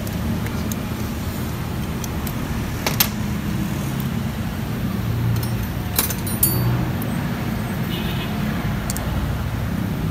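A few sharp metal clicks from hand tools and brake parts on a scooter's front disc brake caliper: one about three seconds in and a couple around six seconds. They sit over a steady low rumble, the loudest sound throughout.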